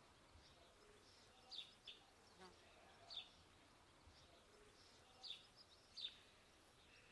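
Near silence with faint, scattered short high chirps from small birds, coming singly or in pairs every second or so.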